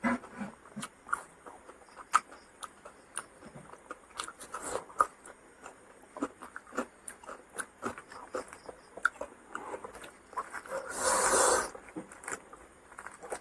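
Close-miked mouth sounds of a person eating fish fry and rice: chewing, with many small wet clicks and lip smacks scattered throughout, and one louder noisy burst lasting under a second about eleven seconds in.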